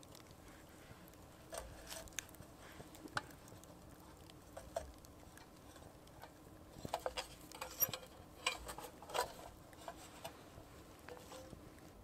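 Faint scattered clicks and light metal clinks as a hurricane lantern is handled and set down beside a small crackling campfire, with a quick run of sharper clicks about seven to nine seconds in.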